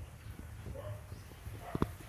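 Short animal calls repeated several times, with two sharp knocks near the end.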